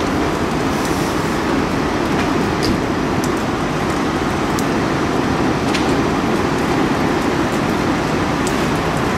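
Fully engulfed Chevrolet Avalanche pickup burning: a loud, steady rushing noise of the flames, with scattered sharp crackles and pops.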